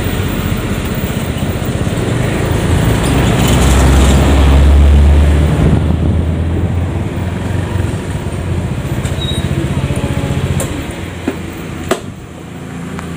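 Motor scooter engine running as the scooter turns in and pulls up. The rumble is loudest about four to five seconds in and dies down near the end, with a couple of sharp clicks.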